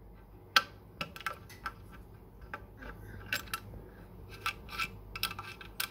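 Light, irregular metallic clicks and ticks from a knurled metal circular cable connector being twisted and wiggled by hand on a Sumitomo pulse tube valve unit, testing how it holds up against rotation. The sharpest click comes about half a second in.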